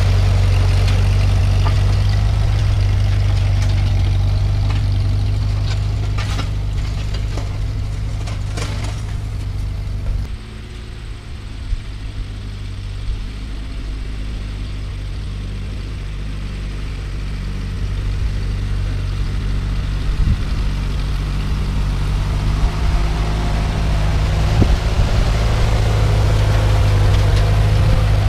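1948 Ford 8N tractor's four-cylinder flathead engine running steadily as it pulls the back blade. It is loud as the tractor passes close, quieter through the middle as it works farther off, and grows louder again near the end as it comes back.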